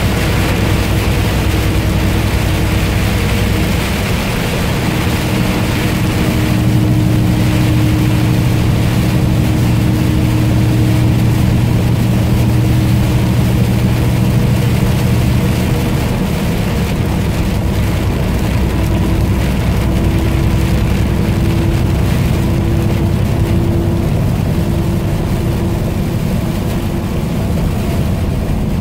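Vehicle running at road speed, heard from inside the cabin: a steady low engine and road hum with a constant hiss of tyres on the wet road and rain on the windshield.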